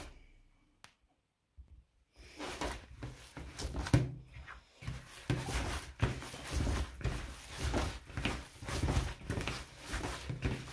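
A gloved hand kneading minced meat in a plastic bowl, making irregular strokes at about two a second, each with a low knock against the bowl. The kneading starts about two seconds in, after a near-silent gap.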